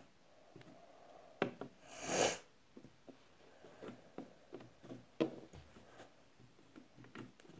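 Quiet handling noises from makeup being picked up and applied: scattered light taps and clicks, with one short rubbing rush about two seconds in.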